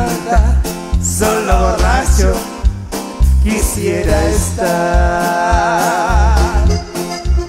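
Live band playing with a singer: a steady low electric-bass and drum pulse under a keyboard and a sung melody, with one long, wavering note held a little past the middle.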